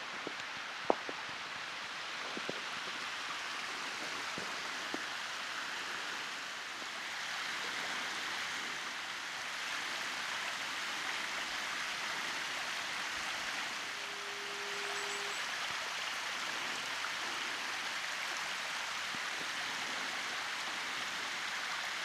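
Small waterfall with a steady rush of falling water. A few sharp clicks come in the first few seconds, the loudest about a second in, and a brief steady low tone sounds about two-thirds of the way through.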